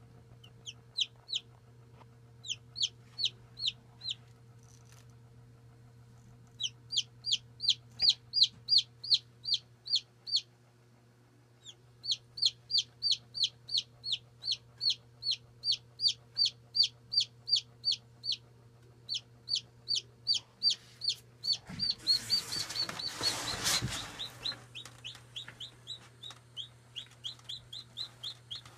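Newly hatched chick peeping loudly and repeatedly, about three to four short high peeps a second, each falling in pitch, in runs with brief pauses, over a steady low hum. A loud rustling noise breaks in about two-thirds of the way through, after which the peeps go on more softly.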